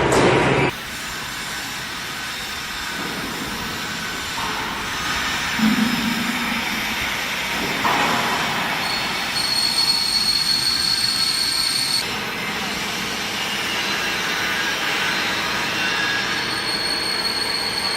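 A CNC H-beam drilling machine working a steel beam: a loud clank at the start, then steady machine noise with a high-pitched squeal of metal cutting that comes in twice, for a few seconds each time.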